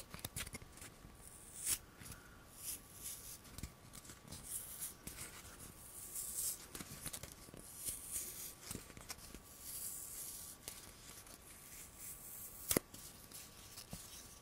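Close-miked ASMR handling sounds: a string of soft, hissy scratching and rustling strokes on an object, with a sharp click about 2 s in and a louder one about 13 s in.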